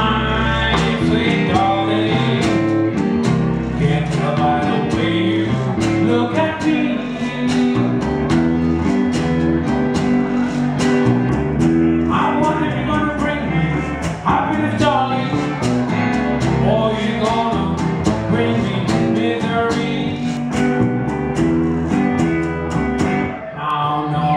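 Live blues trio playing: acoustic guitar and electric guitar with a washboard scraped and tapped in a steady rhythm, and a man singing. The music dips briefly near the end.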